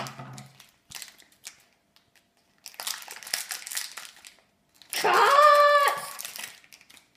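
A small plastic bag crinkling and crackling as it is handled and cut open with scissors, with a few small clicks. About five seconds in, a voice holds one note for about a second, louder than the crinkling.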